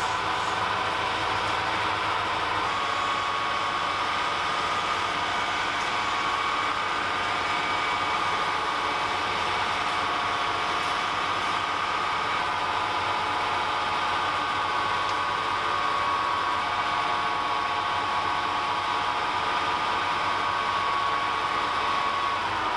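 Metal-turning lathe running steadily with a whine from its drive, while a hand radiusing tool is held against the spinning steel connecting rod. The whine starts to drop in pitch at the very end.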